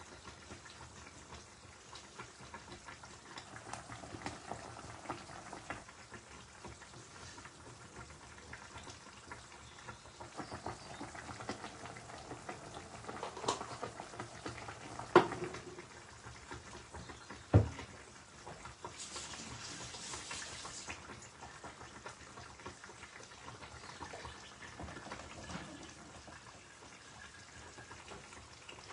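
Fish and yardlong bean curry simmering and bubbling in a pan. There are two sharp knocks about halfway through and a brief hiss a little later.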